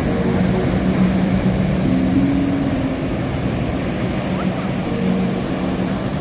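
Steady roar of ocean surf breaking on the beach, with a few low held tones that come and go over it.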